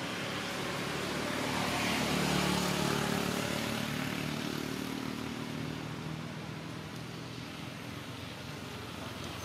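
A motor vehicle driving past, its engine note growing louder to a peak about two and a half seconds in, then slowly fading away.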